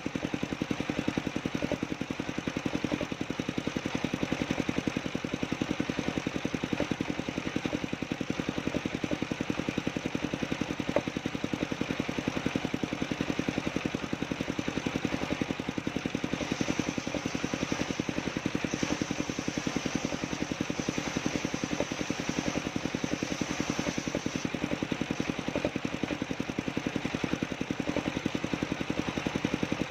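Engine of a homemade wood-cutting sawmill running steadily with a fast, even pulse. A higher hiss comes and goes in the second half.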